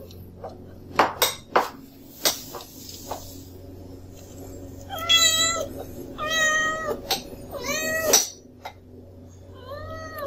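Kitten whining for food at mealtime: three drawn-out meows in a row about halfway through, and a fainter fourth near the end. A few sharp knocks and clicks come in the first couple of seconds.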